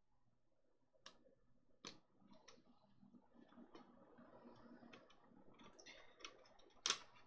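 Small plastic model parts being handled and pressed into place by hand: faint rustling with scattered sharp clicks, the loudest one near the end.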